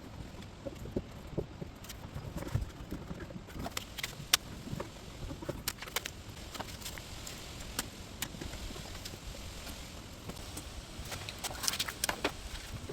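Irregular clicks, taps and knocks of hands working on a car door's metal inner panel, handling and pressing on sheets of sound-deadening mat, with a cluster of sharper clicks near the end.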